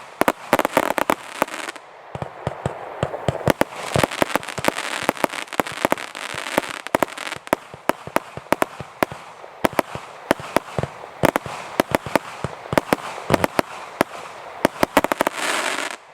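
Boss Nasty Black Panther consumer firework cake firing a rapid, irregular string of bangs, several a second, with crackling between them. A dense volley comes near the end.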